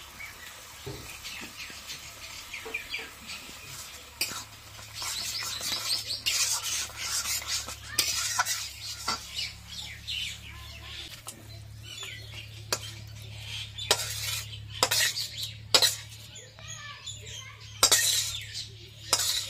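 A spoon scraping and stirring thick mash in a metal kadai, with sharp clinks of metal on metal, loudest in the last few seconds as the pan is scraped out into a bowl.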